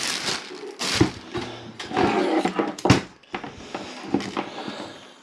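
Hands handling a stainless-steel toaster and its plastic wrapping on a wooden table: rustling, with two sharp knocks about one and three seconds in.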